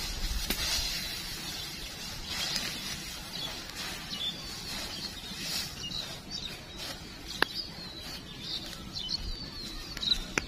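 Dry straw and stalks rustling as they are handled, with birds chirping in the background.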